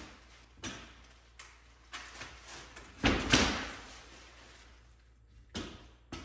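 Polyethylene plastic film crinkling as it is pulled off and bunched up, with sharp knocks and clacks of bar clamps being handled on a hardwood floor. The loudest stretch of rustling and knocking comes about three seconds in.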